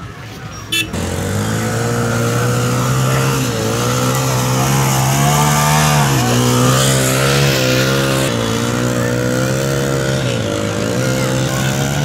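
Motorcycle engine comes in sharply about a second in and runs loudly close by, its revs rising and falling as the bike is ridden through soft sand.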